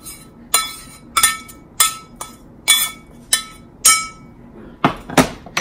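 A spoon tapping against a cast iron skillet while bacon grease is spread in it: about six sharp clinks, each ringing briefly, a little over half a second apart. Near the end come a few heavier knocks.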